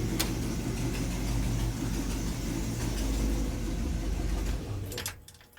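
1963 Chevrolet Impala V8 idling steadily, then shut off about four and a half seconds in, the running dying away within half a second. A few clicks follow as it stops. The engine has a ticking lifter on one side and an exhaust leak on the other, in the owner's judgement.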